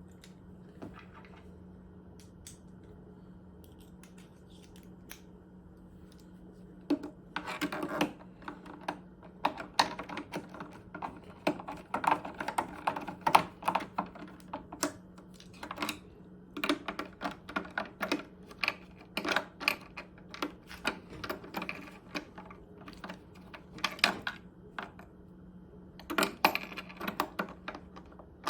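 Irregular clicking and tapping of a screwdriver with an extension bit as screws are driven back into a Macintosh during reassembly, coming in clusters of quick clicks after a quiet start.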